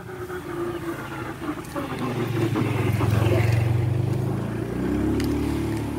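A motorcycle engine passing close by, loudest about halfway through, with its pitch rising near the end.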